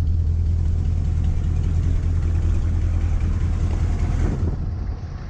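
The 6.2-litre Detroit Diesel V8 of a 1985 GMC 3500 idling steadily, freshly started after a crank-no-start problem.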